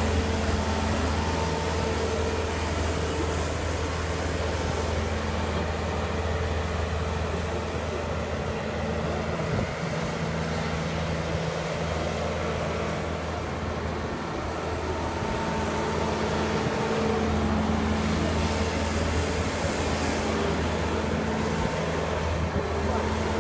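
Bobcat skid-steer loader's diesel engine running at high revs while the loader is driven and its bucket worked, its note easing a little around the middle and picking up again later.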